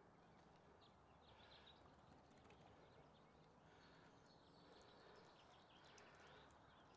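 Near silence: faint outdoor background hiss with a few faint, high chirps, like distant birds.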